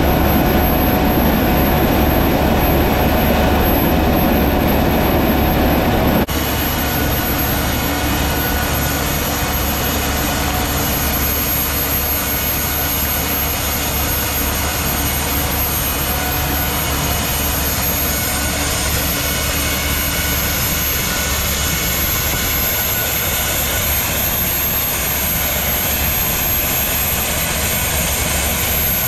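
Rover 1S60 gas turbine engine, about 60 hp, running steadily under load with a high whine as it powers the tractor and rear rototiller. About six seconds in the sound changes abruptly, with much less low rumble.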